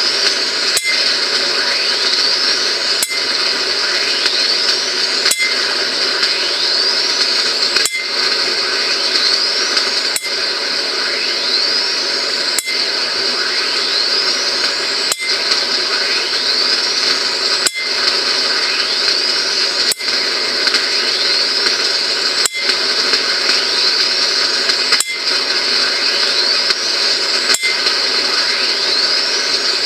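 High-voltage electric discharge apparatus cracking sharply about every two and a half seconds, twelve times. After each crack comes a whine that rises in pitch, all over a steady high hiss.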